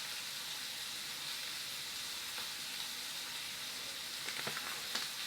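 Shrimp frying in oil in a pan: a steady sizzling hiss, with a few faint clicks near the end.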